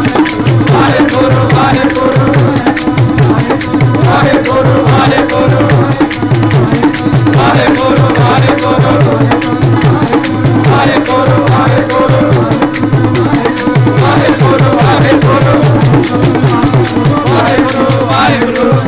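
Sikh kirtan: a group of voices singing devotional hymns to a steady drum and jingling, rattling hand percussion, loud and continuous.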